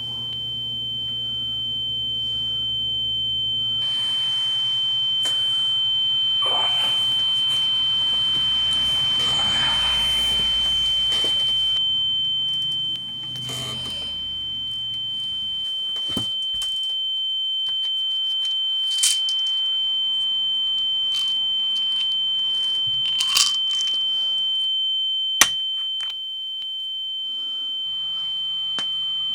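A steady high-pitched tone held unbroken throughout, like a continuous electronic ringing. Under it, a hissing, rumbling background swells over the first dozen seconds and then drops away, and a few sharp clicks and ticks follow, the sharpest about 25 seconds in.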